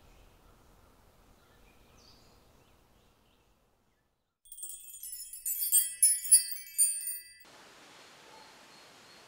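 A bright, high-pitched chiming, tinkling sound, like a short musical sparkle, starts about halfway in, strikes several times and stops after about three seconds, leaving a faint steady hiss.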